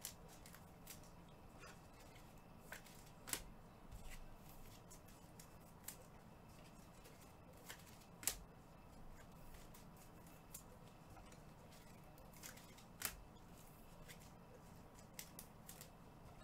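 Faint, irregular clicks and light rustling of trading cards and pack wrappers being handled, a sharp click every second or so, over a faint steady hum.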